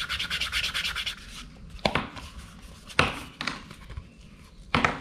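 Quick back-and-forth rubbing of a hand tool along the stitched edge of a leather card holder, about nine strokes a second, stopping after about a second and a half. Three sharp knocks follow, spaced about a second apart.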